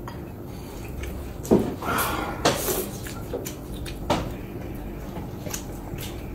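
Chopsticks clicking against porcelain bowls and plates as noodles and meat are served and eaten. A few sharp clinks, the loudest about one and a half seconds in.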